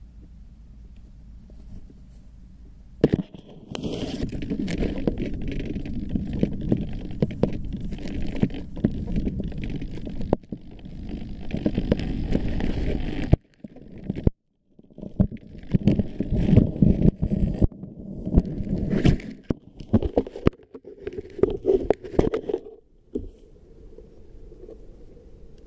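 Handling noise from a camera on a foam flying wing as the wing is picked up and carried: the wing rubs and knocks against clothing, over a steady rumble. About 3 seconds in it starts, with a short break about halfway, and it stops a couple of seconds before the end.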